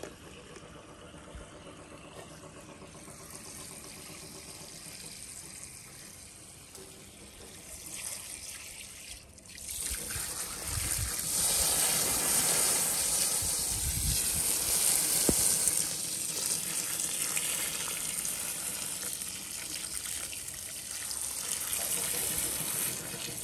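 Water running and trickling, faint at first and much louder from about ten seconds in. There are a couple of dull low thumps in the water.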